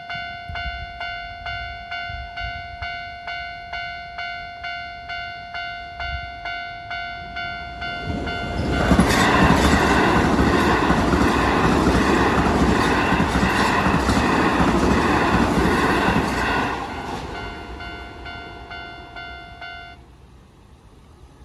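Japanese level-crossing alarm ringing steadily, about two strikes a second, as a Keio Line electric train approaches. The train passes loudly for about eight seconds, from about a third of the way in, then fades. The crossing bell stops shortly before the end.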